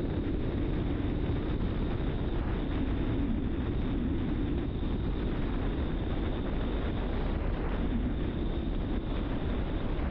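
Car driving at a steady speed: continuous tyre and road noise with a low engine hum.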